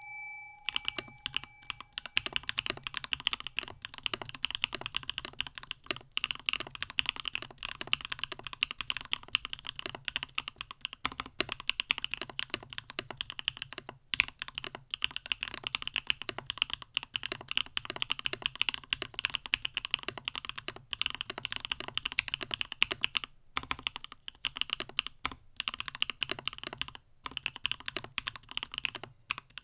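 Continuous fast typing on a mechanical keyboard with Gateron Smoothie linear switches in a CannonKeys StackedTKL stacked-acrylic case: a dense run of keystroke clacks with a few brief pauses. A short ringing chime fades out about a second in.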